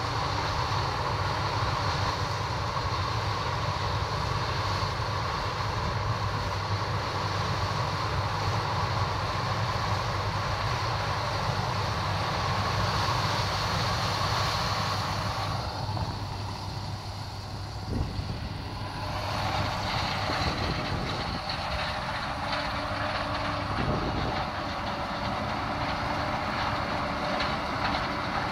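John Deere combine harvester harvesting corn, its engine and threshing works running as a steady low drone with a constant whine on top. The higher sound eases for a few seconds past the middle.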